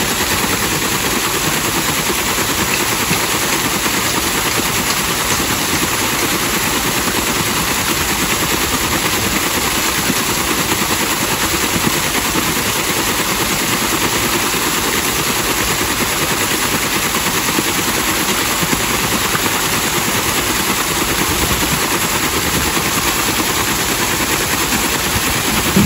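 Water pouring over an overshot waterwheel and splashing down off its buckets into the pond as the wheel turns: a steady, loud rushing splash.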